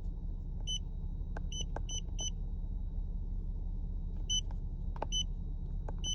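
A 3.6 Pentastar V6 idling with a steady low rumble, an engine still logging misfires on cylinders 5, 3 and 1. Over it come short electronic beeps, about seven in two groups, with a few faint clicks, as a readout is paged through.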